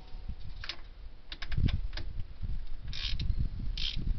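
Light clicks and knocks from the metal thermostat housing being handled into place. About three seconds in, a ratchet wrench starts clicking in short strokes, a little under one a second, running down the thermostat housing bolts.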